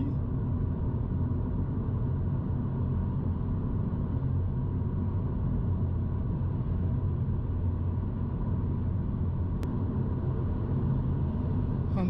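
Cabin noise of a Mini Cooper SE electric cruising at about 90 km/h on a motorway: a steady low rumble of road and wind noise from its Hankook Ventus S1 evo3 tyres and the airflow, with no engine sound. One small click sounds near the end.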